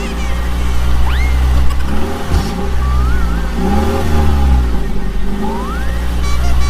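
A vehicle engine sound running as a steady low drone that swells and eases every couple of seconds, with a few short rising whistle-like swoops over it.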